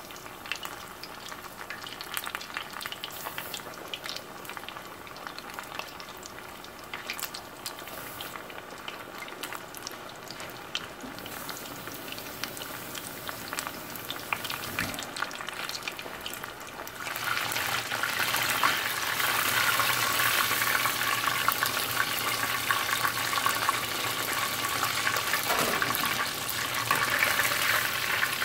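Chicken drumettes deep-frying in hot oil on their first fry: a steady sizzle with scattered crackles and pops. About two-thirds of the way through it turns much louder and denser.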